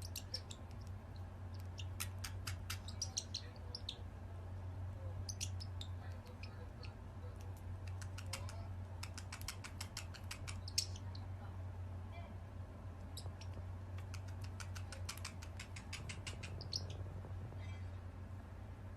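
Several bursts of rapid, high-pitched chirps or squeaks from a small animal, over a steady low hum.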